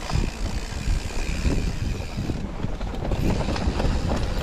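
Mountain bike riding fast over a rough dirt forest singletrack: a steady low rumble from the tyres, broken by many short knocks and rattles as the bike hits bumps and roots.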